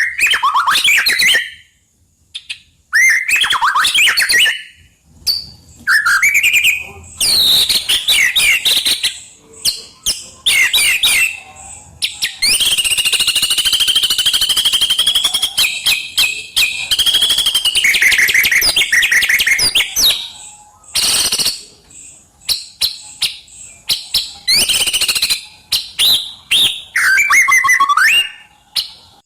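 White-rumped shama (murai batu) in full song: a rapid run of varied whistles, trills and harsher rattling phrases, with one long unbroken phrase about halfway through.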